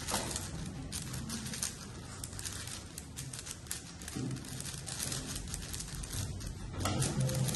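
Plastic 6x6 speed cube being turned rapidly by hand, a fast, irregular clatter of clicking layer turns.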